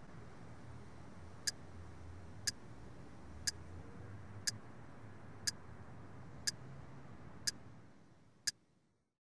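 A clock ticking once a second, each tick a short sharp click, over a faint low room hum that fades away near the end, leaving the ticks alone.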